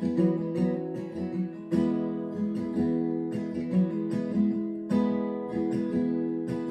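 Martin acoustic guitar strummed in a steady rhythm of repeated chord strokes, with no singing.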